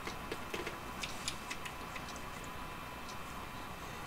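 Light metallic clicks and ticks as the steel parts of an 1889 Bodeo revolver are fitted together by hand, a small pin being worked into the frame at the cylinder. A handful of clicks fall in the first couple of seconds, then it goes quieter.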